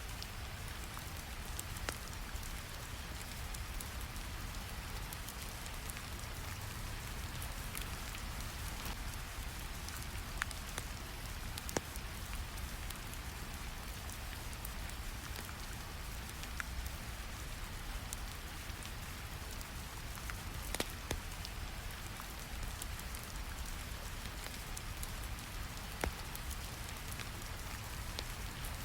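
Recorded rain ambience: steady rain patter over a low brown-noise rumble, with a few sharp crackles scattered through it, the loudest about twelve and twenty-one seconds in.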